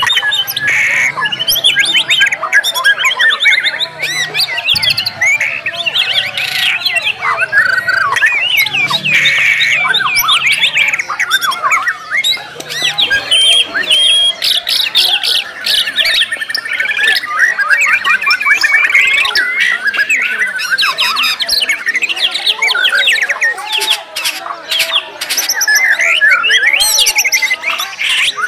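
White-rumped shamas (murai batu) singing hard and all at once, as at a songbird contest: a dense, unbroken tangle of whistles, chatters and rapid-fire repeated sharp notes (the 'nembak' shooting phrases), with borrowed calls of other birds mixed in.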